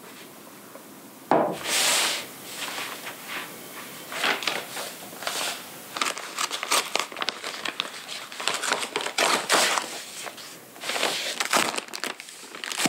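White paper wrapping crinkling and rustling as it is peeled back by hand from a thick bundle of papers, in irregular bursts starting about a second in.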